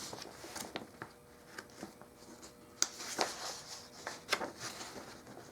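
Light handling noises in a small room: soft rustles and a handful of short, sharp clicks, the sharpest about three seconds in, over a faint steady hum.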